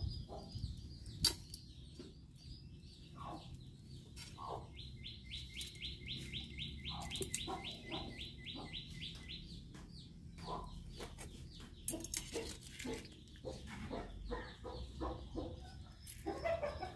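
Birds chirping and calling, including a rapid run of evenly repeated chirps, about five a second, that lasts several seconds midway, over a faint low background rumble.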